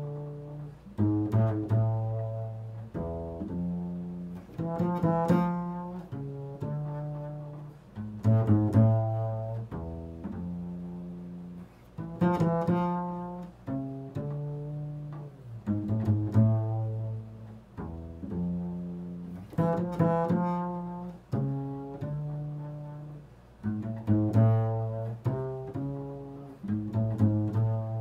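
Improvised solo instrumental music: low, deep notes, each starting sharply and fading away, played in loose phrases.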